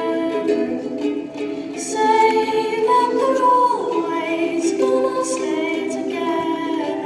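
A female voice singing to ukulele accompaniment, with held notes that glide between pitches.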